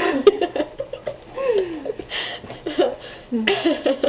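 Laughter and giggling in bursts, with a sharp click about a quarter second in.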